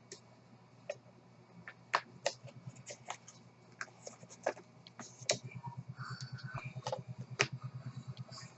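Scattered small clicks, taps and scrapes of a smartphone and its packaging being handled. A low hum pulses rapidly through the second half.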